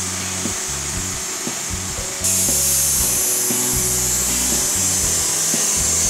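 Wood-Mizer LT70 band sawmill's thin-kerf band blade sawing a squared cant: a steady hiss that gets suddenly louder about two seconds in as the blade enters the wood. Background music with a beat plays underneath.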